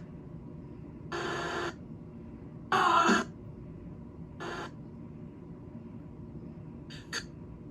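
Steady radio receiver hiss, broken by four brief bursts of sound, the loudest a little before halfway.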